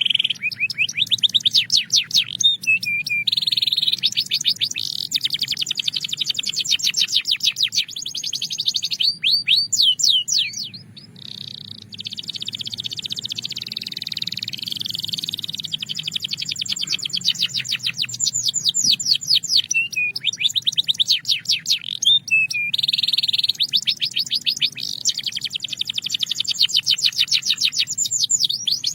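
A Belgian canary singing: long, fast trills and rolls of quickly repeated high notes, broken by short pauses, the longest about eleven seconds in.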